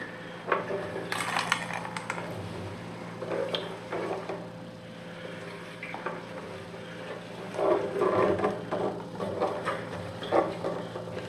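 Stale gasoline sloshing inside a 1977 Honda CB750's steel fuel tank as it is tipped and shaken, and splashing out into a plastic drain pan in uneven bursts, carrying rust particles out of the long-stored tank.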